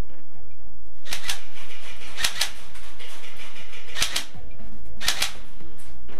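Airsoft gun firing four short bursts of rapid clicking shots, over background music.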